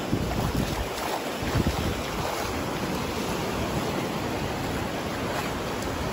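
Ocean surf washing in and breaking along the shore, a steady rushing noise, with wind buffeting the microphone in low gusts, strongest in the first second or two.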